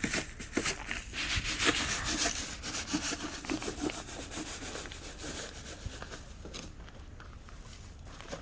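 Coarse rock salt being handled and scattered for de-icing: a rapid, irregular gritty crunching and rustling of salt grains, busiest over the first half and fading after that.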